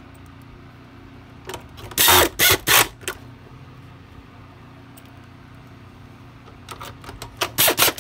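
Torque-limited electric screwdriver with a Phillips bit driving screws into a plastic vacuum housing in short bursts: three quick bursts about two seconds in and another run near the end, over a faint steady low hum.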